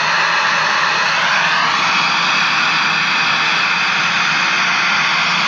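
Loud, steady hiss of static from an old Sharp C1401 colour television's speaker, the set just powered up on the repair bench.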